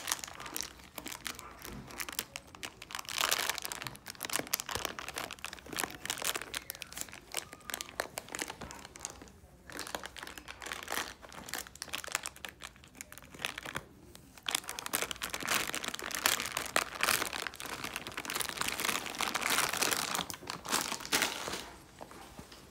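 Miniature schnauzer puppy chewing a plastic baby-wipes package: the plastic crinkles and crackles in spells, with a couple of short pauses.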